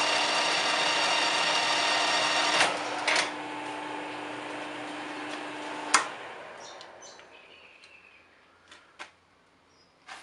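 Metal lathe running with a steady, many-toned whine, its faceplate turning a bolted-on connecting rod. Two clicks about two and a half seconds in and the machine gets quieter; a sharp click about six seconds in and the whine stops, the sound dying away, followed by a few faint knocks.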